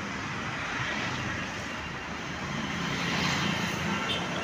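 Street traffic noise: a steady wash of passing vehicles, with an engine hum swelling slightly after the middle.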